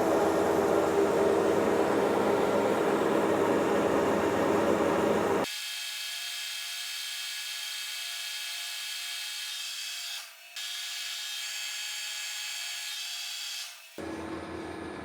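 Monarch Series 60 metal lathe running, machining 1018 cold-rolled steel stock. The sound is steady. About five and a half seconds in it abruptly loses its low end and turns quieter, drops out briefly twice, and returns to full sound near the end.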